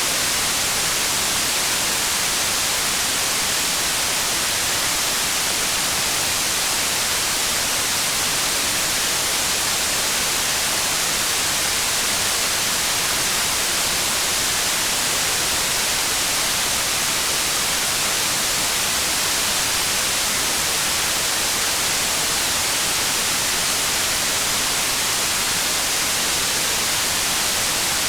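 Rain falling in a steady, even hiss with no separate drops or thunder standing out, brightest in the high end.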